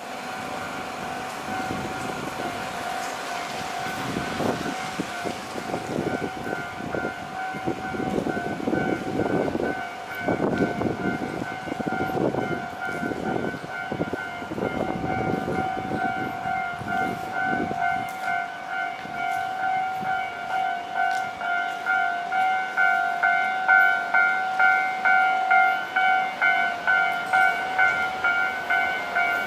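Japanese level-crossing warning bell ringing steadily, an evenly repeated two-tone electronic clang. A train's rumbling passes through between about four and eighteen seconds in.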